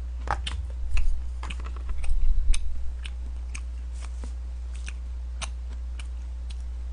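Chewing with scattered small clicks, and soft knocks about one second and two seconds in as a cup-noodle container and chopsticks are handled and set down on a plastic lunch tray, over a steady low hum.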